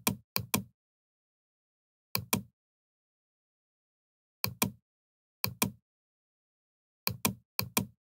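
Computer mouse clicking: six quick pairs of sharp clicks at uneven intervals, with dead silence between them.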